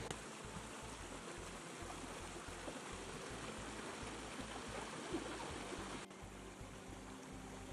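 Steady rushing noise with choppy low rumbling underneath. It drops slightly in level a little after six seconds.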